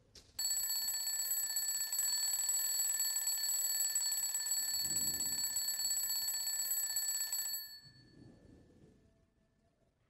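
Alarm clock ringing steadily for about seven seconds, then cut off. Some softer low rustling comes partway through and just after it stops.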